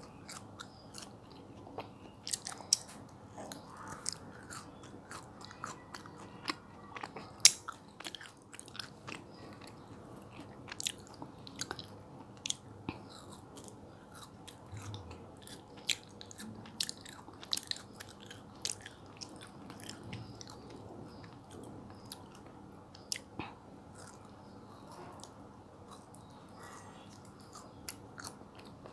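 Close-miked chewing of soft, chewy mango jelly: many sharp, irregular wet clicks and smacks from the mouth, with the loudest about seven and a half seconds in, thinning out toward the end.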